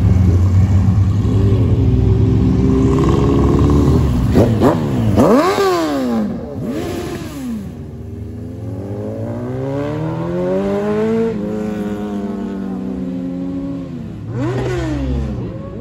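A Ford Mustang's engine pulling away, strong in the low end for the first few seconds. Then sport motorcycles revving in quick sharp blips, one accelerating away in a long rising note from about halfway, and another quick rev near the end.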